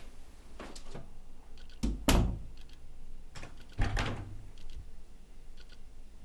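A door being opened and shut: a few knocks and thuds, the loudest a heavy thump about two seconds in, another near four seconds.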